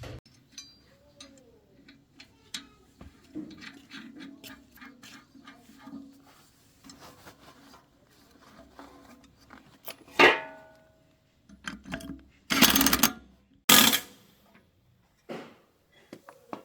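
Metal parts and tools being handled on a workbench: scattered light clicks and clinks, a ringing metallic clank about ten seconds in, then two short loud scraping noises shortly after.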